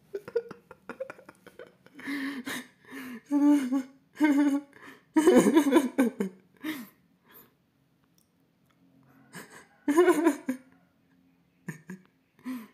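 A man laughing in short, separate bursts, with breathy hiccup-like catches between them.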